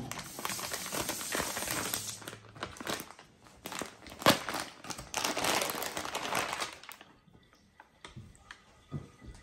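Thin clear plastic bag crinkling and rustling as a flattened plush toy is worked out of it, with one sharp crack about four seconds in. The crinkling stops about seven seconds in, leaving only a few light taps.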